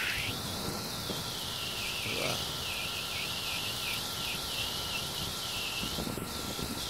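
Heavy hurricane rain pouring down in strong wind: a steady, dense hiss.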